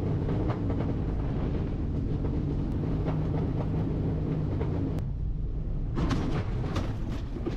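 Steady rush of wind and low rumble in the cockpit of a light aircraft gliding in to a forced landing in a field after engine failure. About six seconds in, the wheels are on the ground and a rattling of knocks joins the rumble as it rolls over the rough field.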